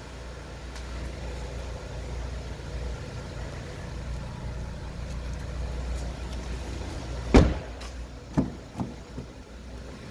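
Knocks of hands on a 2009 Lacetti's door and interior trim: one sharp knock about seven seconds in, then two lighter ones, over a steady low hum.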